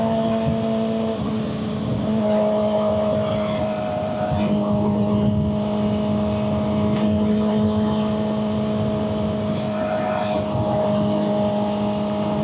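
Suzuki GSX-R600's inline-four engine running steadily while the bike is ridden; the engine note dips about a second in and settles again about a second later.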